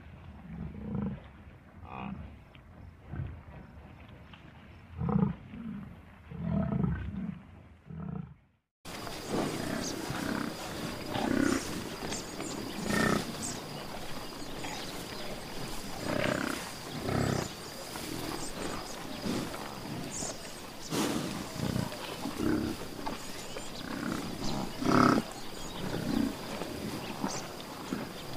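Buffalo giving repeated short, low growling grunts, several seconds apart. About nine seconds in, the recording cuts to a different, noisier one with more of the same calls over a thin, steady high tone.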